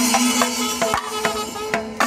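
Traditional Kerala temple-festival ensemble playing: quick drum strokes and cymbal clashes over a steady held drone note.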